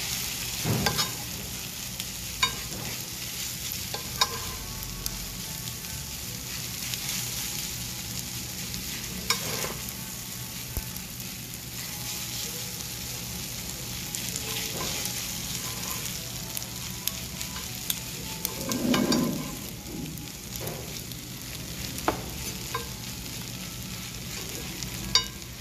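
Kkakdugi fried rice sizzling in a cast-iron pan while a metal spoon stirs and scrapes it, with sharp clinks of the spoon against the pan every few seconds. About nineteen seconds in there is a louder, duller scuff.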